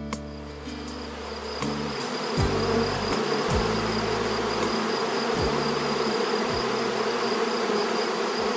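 Honeybees buzzing in numbers around the hive entrances, a steady dense hum that swells about two seconds in, with now and then a single bee's buzz falling in pitch as it flies close past.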